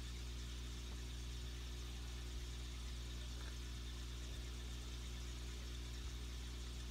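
Steady low hum of running aquarium equipment, such as a pump, with an even hiss from a stream of air bubbles rising through the water.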